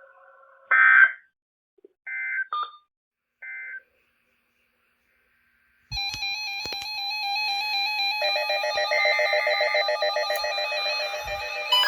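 Three short screeching data bursts about a second apart on a weather radio, typical of the EAS end-of-message code that closes a broadcast alert. After a few seconds of silence, an electronic alert alarm starts about six seconds in: several steady warbling tones at once, thickening about two seconds later, as a new warning comes in.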